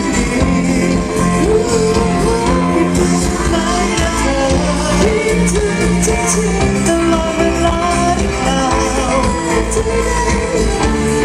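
Loud live pop band music played through a PA system during a sound check, with a voice singing over the band.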